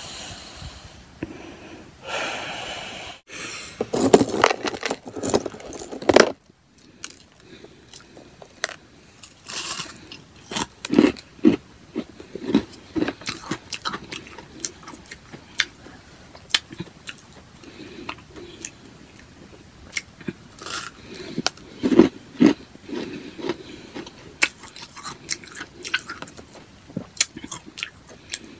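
Close-up chewing and crunching of powdery freezer-frost ice chunks, a run of irregular sharp crackles with a louder spell of crunching a few seconds in.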